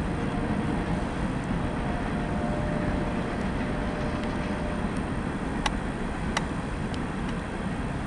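Manifest freight train rolling past, a steady low rumble of wheels on rail, with two sharp clicks a little past the middle.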